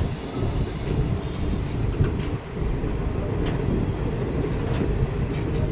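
Rumble of an Indian Railways express train's coach running on the track, heard from on board as it pulls out of the station, with a few sharp clicks from the wheels spread through it.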